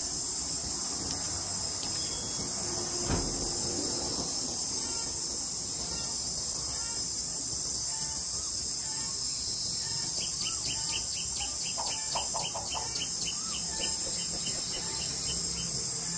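A steady, high-pitched chorus of insects buzzing without a break. A bird gives a run of quick chirps, about four a second, about two-thirds of the way in. There is a single soft thump about three seconds in.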